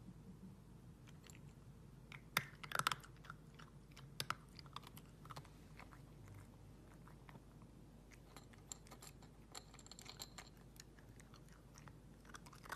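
A cat crunching dry kibble: irregular crisp crunches and clicks, with the loudest cluster between two and three seconds in.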